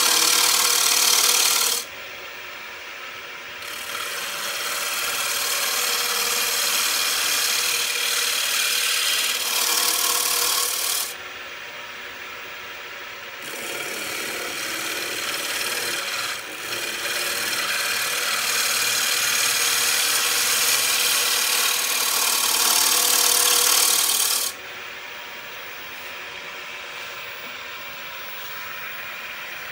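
Bowl gouge cutting a spinning wooden bowl on a wood lathe: a loud, hissing shear of shavings coming off the wood. The cutting stops about two seconds in, again around eleven seconds, and for good about twenty-four seconds in. In the gaps the tool is off the wood and only the lathe's quieter running hum is left.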